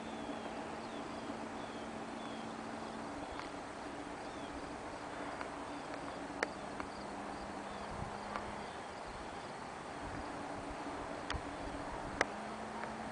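Open-air ambience: a steady background hiss with faint, repeated short falling chirps of a small bird, a low steady hum that drops out and comes back, and a few sharp clicks, the loudest near the end.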